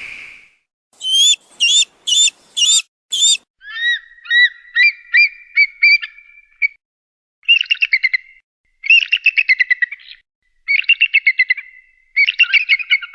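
Eagle calling: a few short, high, sweeping chirps, then a quicker run of rising whistled notes, then four bursts of rapid piping chatter.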